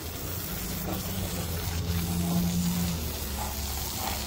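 Tru-Cut sawmill running steadily: a low engine hum with an even hiss above it.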